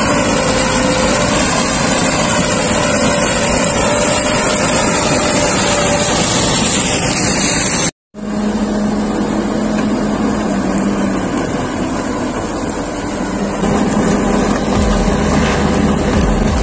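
Ropa Tiger 6S self-propelled sugar beet harvester working: its diesel engine runs steadily under load along with the rumble of the lifting and cleaning gear. About halfway through there is a short break, and after it the machine noise carries on with a lower engine drone.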